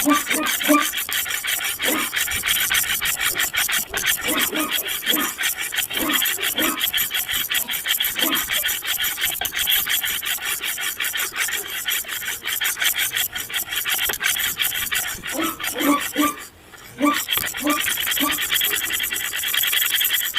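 Continuous rapid rasping, scratching noise, like something being scraped or rubbed in quick strokes, breaking off for about half a second near the end.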